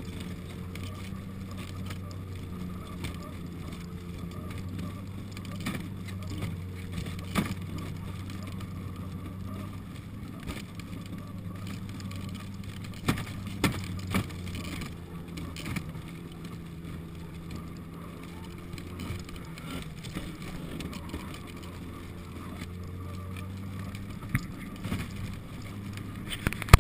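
Snowmobile engine running at a steady cruise while towing a wooden cargo sled over snow, heard from the sled behind it, its pitch shifting slightly now and then. A few sharp knocks and rattles from the sled as it jolts over bumps.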